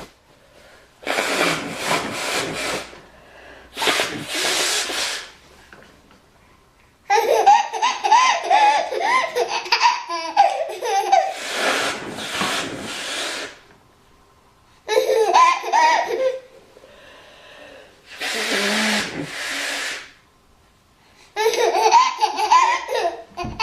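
A woman blowing her nose several times in long noisy blows. Between the blows a baby breaks into bursts of belly laughter, three times.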